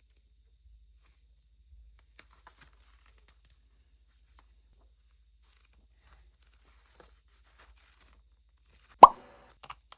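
Packaging handled during an unboxing: faint scattered rustles and ticks, then a single sharp knock about nine seconds in, followed by a few light clicks.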